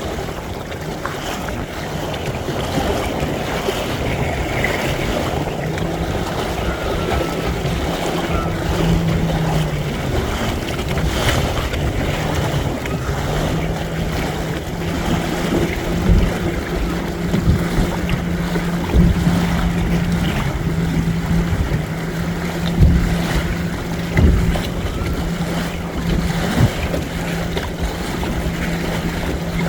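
Wind buffeting the microphone and water rushing past a Windrider 17 trimaran under sail. A steady low hum runs through most of it, and there are a few short thumps in the second half.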